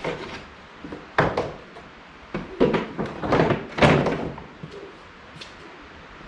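Plastic Power Wheels Gator body being set down and shifted onto a welded steel frame: a series of thumps and knocks, the loudest about four seconds in.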